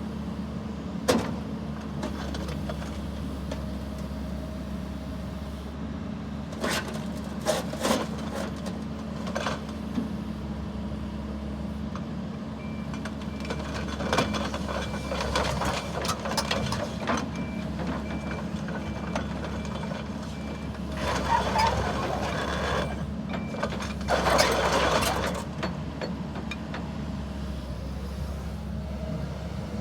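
Kobelco SK140SR excavator's Mitsubishi diesel engine running steadily, with scattered clunks from the working machine. A repeated high beeping alarm sounds for about ten seconds in the middle, and two louder hissing bursts come toward the end of the beeping.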